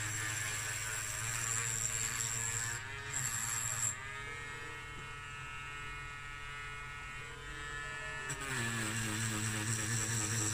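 Battery-powered Dremel Micro rotary tool with an abrasive wheel running against a bare diecast metal toy-car body, a steady buzzing hum. About four seconds in, the whine rises and holds steady as the wheel comes off the metal and spins free. About eight seconds in it drops back to the grinding buzz as the wheel goes back onto the body.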